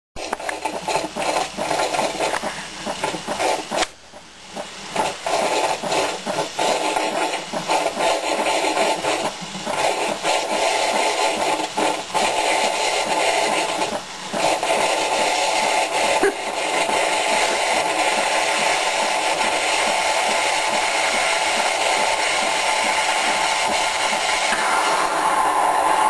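Espresso machine's steam wand frothing milk in a jug: a continuous hiss with a rattling, crackling gurgle, dipping briefly about four seconds in and shifting in tone near the end.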